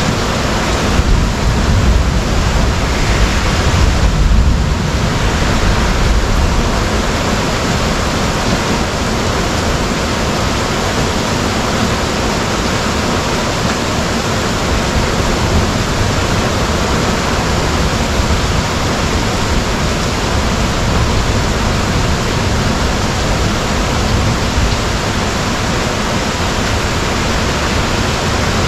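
Heavy thunderstorm downpour: a steady, even hiss of heavy rain, with a low rumble of thunder dying away over the first few seconds.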